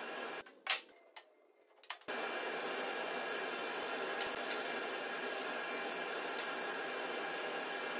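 Sliding table saw running with its dust extraction: a steady rushing machine noise. It drops away briefly about half a second in, with a few light knocks, and returns at full level about two seconds in.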